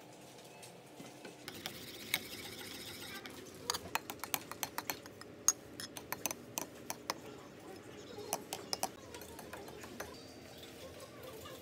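A utensil stirring cake batter in a ceramic bowl: a stretch of scraping, then a run of sharp, irregular clinks, several a second, as it knocks against the bowl.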